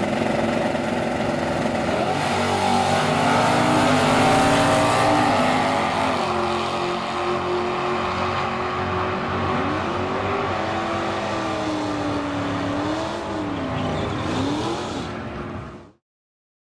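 Drag-racing cars' engines running hard down the strip at full throttle, their pitch climbing again and again as they pull through the gears. The sound cuts off abruptly near the end.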